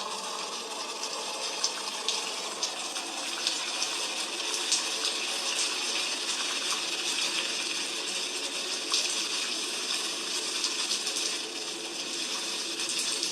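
Heavy rain falling steadily: an even hiss dotted with many sharp drop impacts, with no thunder.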